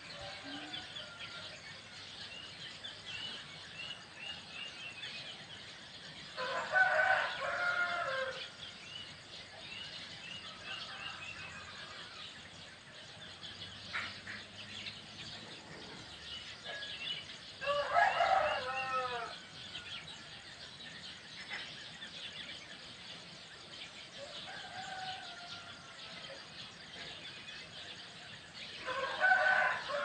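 A rooster crows three times, about eleven seconds apart, the last crow near the end. Between the crows, small birds twitter in repeated runs of short high chirps.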